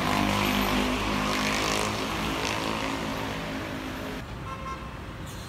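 A motor vehicle's engine running close by and passing, loudest at the start and fading away over about four seconds.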